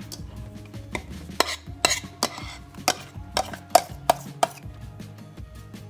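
A metal spoon scraping and clinking against a stainless steel pot and a ceramic bowl as thick porridge is spooned out. There are about nine sharp clinks, roughly every half second, stopping about four and a half seconds in, over a low steady hum.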